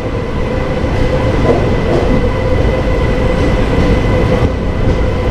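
Indian Railways express train running, heard from its coach by the doorway: a steady rumble of wheels on the track, with a steady humming tone over it.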